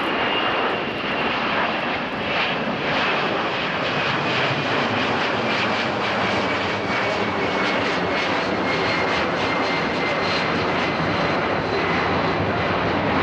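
Boeing KC-767 tanker's twin jet engines passing low overhead: a steady rush of jet noise with a thin whine that slowly falls in pitch as the aircraft goes by.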